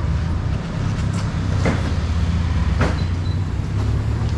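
A parked truck's engine idling with a steady low hum, with a few short knocks as styrofoam fish boxes are handled.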